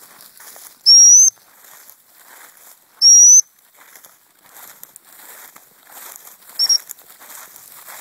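Two loud, high-pitched blasts on a gundog whistle, each about half a second long and rising slightly, then a short, quieter pip near the end. Under them, footsteps crunch steadily through dry cereal stubble.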